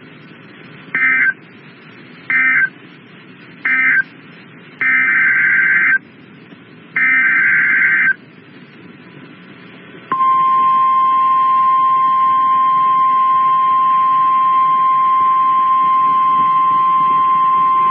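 NOAA Weather Radio alert signalling. First come three short warbling SAME data bursts, the end-of-message codes closing the previous warning. Then come two longer SAME header bursts for the next alert. About ten seconds in, the steady 1050 Hz weather radio warning alarm tone begins and holds on without a break.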